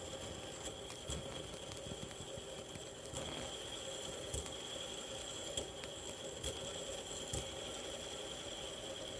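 A home-made fidget spinner on fire: a steady hiss with a faint high whine and scattered small crackles.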